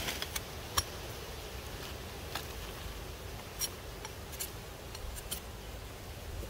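Cleaver blade shaving a thin wooden stick: a handful of short, sharp cuts and clicks at irregular intervals.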